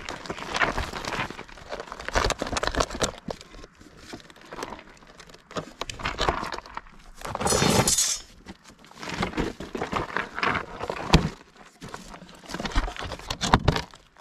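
Handling noises from a shot wooden target stand and its block of clay being taken apart by hand: wood knocking and scraping, crinkling and crumbling. A longer rustling scrape comes about halfway through, and there are sharp knocks near the end.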